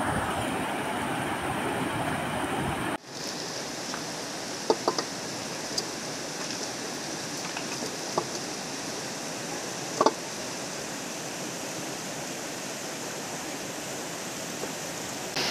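River rapids rushing steadily over boulders. About three seconds in the rush drops suddenly to a softer, even flow, and a few short knocks sound through it, the loudest about ten seconds in.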